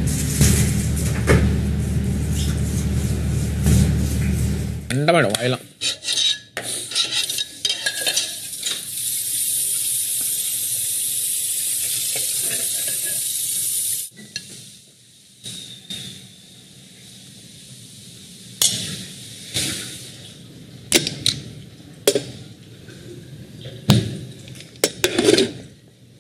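Kitchen cooking sounds: a steady sizzling hiss of food frying in a pan for about five seconds, then metal pots, lids and utensils clinking and clattering on the stove. It opens with a loud low drone that cuts off suddenly about five seconds in.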